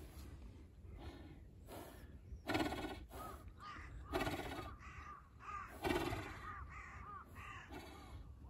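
Crows cawing: three loud, harsh caws roughly one and a half to two seconds apart, with a run of shorter, softer calls between them.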